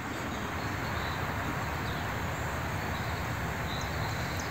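Steady wash of road traffic noise with a low rumble, and a few short high bird chirps, mostly near the end.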